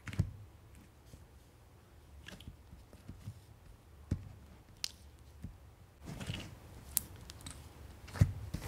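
Yellow clay slime and white foamy slime being pressed and poked with the fingers in a jar, giving a scatter of short sticky pops and squishes, with the sharpest just after the start and near the end.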